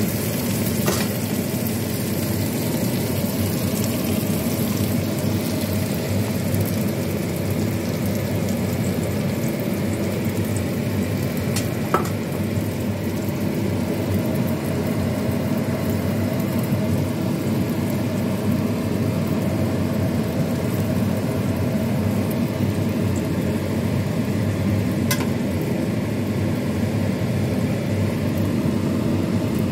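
Scallions, then an egg with small white fish, frying in oil in a wok: a steady sizzle over a continuous low roar. A few sharp ticks come at moments through it.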